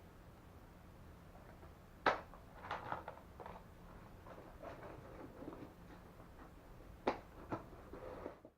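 A few sharp knocks and clicks of things being handled and set down. A loud knock comes about two seconds in and another about seven seconds in, with lighter clatter between them.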